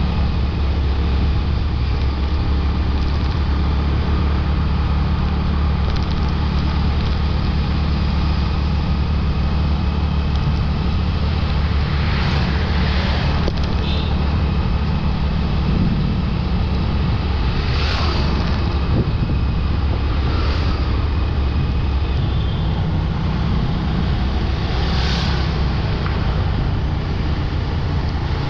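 A motorbike running steadily at riding speed, with a constant low drone of engine and road noise. Other vehicles pass by several times, at about twelve, eighteen, twenty and twenty-five seconds.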